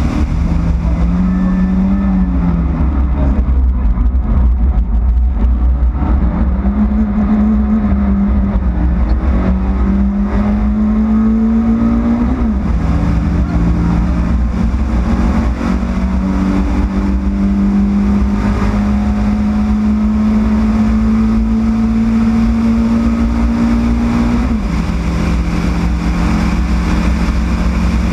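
Yugo race car's engine running hard under load, its note climbing slowly and dropping suddenly twice, about 12 and 24 seconds in, over a heavy low rumble.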